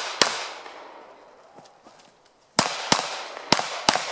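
Pistol shots with a long echo trailing after each: one shot a quarter second in, then after a pause of about two seconds four more in quick succession.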